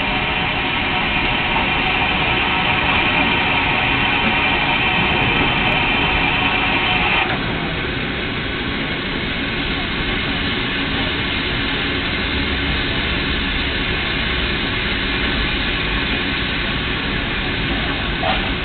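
Steam locomotive standing at the platform, hissing steam steadily, with a louder, higher hiss that cuts off suddenly about seven seconds in. Crowd chatter runs underneath.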